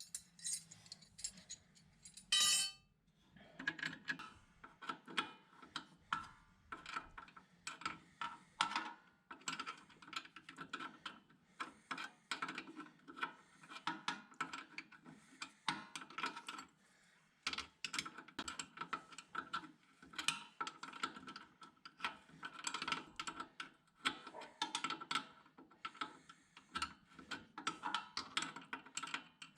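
Hand tools working on a brake line fitting at a VW T3's rear brake: quick, irregular metallic clicking and tapping, with one louder clatter about two and a half seconds in, over a faint steady hum.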